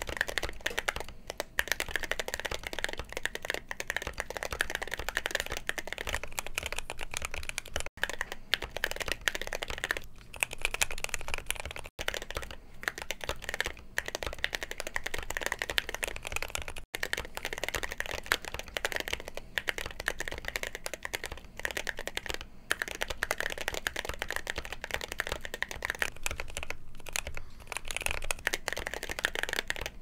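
Steady, fast typing on a Keychron Q6 mechanical keyboard, many quick clacks in an uneven rhythm, with ceramic keycaps (Cerakeys) fitted for at least part of it. The typing breaks off abruptly for a moment about 8, 12 and 17 seconds in.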